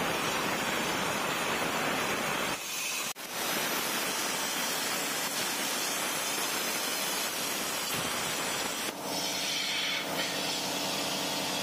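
CNC plasma cutter torch cutting thin aluminium sheet: a loud, steady hiss of the arc and air. It breaks off briefly about two and a half seconds in and starts again with a click. A buzzing tone joins the hiss for the last few seconds.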